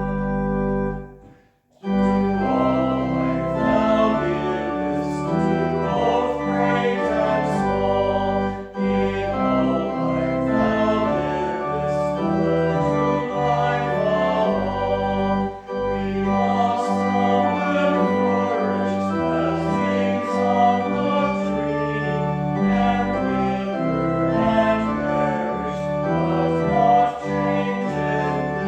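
Organ playing slow music in held chords, broken by a brief drop to near silence about a second and a half in.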